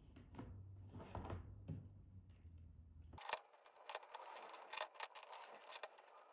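Faint clicking and rattling of 3D-printed plastic lamp parts being handled and snapped into place, a few scattered clicks at first, then a dense run of small crisp clicks from about three seconds in.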